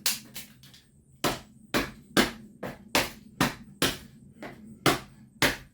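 A camcorder being slammed again and again against the garage floor: a dozen or so hard, sharp impacts at about two a second, each with a short rattling ring, as the camera is smashed beyond repair.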